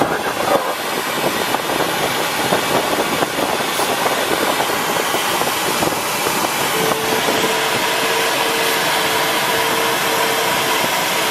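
Steady rush of air over the canopy of a Duo Discus glider, heard in the cockpit. About seven seconds in, the variometer starts beeping, a run of short beeps at one pitch, a few a second, the sign that the glider is climbing in lift.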